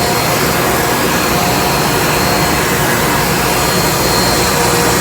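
Ammonia refrigeration compressors running together in a ship's refrigeration plant: a loud, steady machinery noise with a few faint steady tones.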